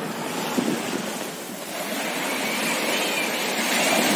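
Sea waves washing in with wind buffeting the microphone, swelling louder about two seconds in.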